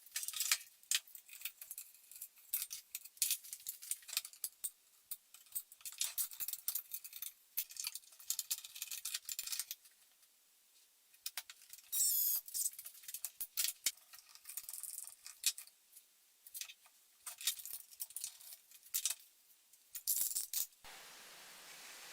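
Irregular clusters of clicks and rattles, like small hard objects being handled and knocked together. About a second before the end they stop and a steady faint hiss remains.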